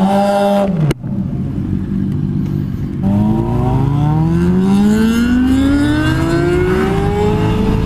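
Motorcycle engine, a Yamaha FZ-07 parallel twin, running with a steady note that breaks off suddenly about a second in. From about three seconds in it accelerates, its pitch rising slowly and evenly over several seconds.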